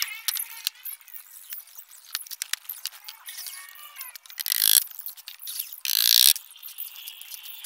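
Hammer blows on a plywood box under assembly. Two loud sharp strikes come a little past the middle and about a second later, with lighter knocks and clicks of wood being handled in between.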